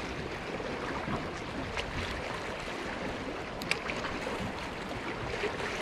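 Sea water lapping and sloshing at the waterline, an even wash with a few faint light ticks.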